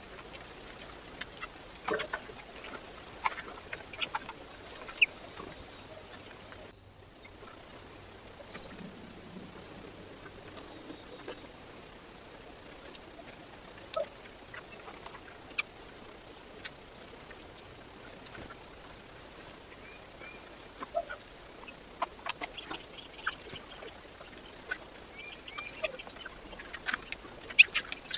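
Birds at a feeder: scattered short clicks and ticks of pecking and movement over a steady faint hiss, coming more often near the end.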